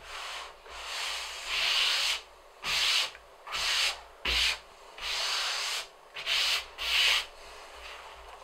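Hands sweeping and rubbing across a leather hide: about nine brushing strokes, each under a second long, with a dull knock about four seconds in.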